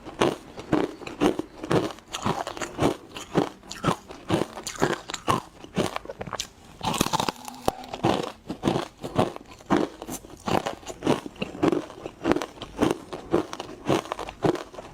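Close-miked crunching of frozen matcha ice being bitten and chewed, a steady run of sharp crunches about two to three a second, with a brighter, hissier crunch about seven seconds in.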